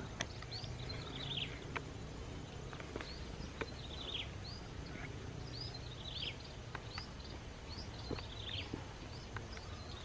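A flock of munias calling: many short, high chirps that fall in pitch, several overlapping, repeating throughout, with a few faint ticks among them.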